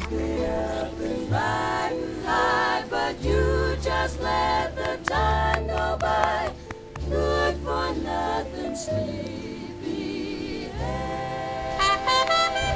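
Background music with singing voices over a bass line.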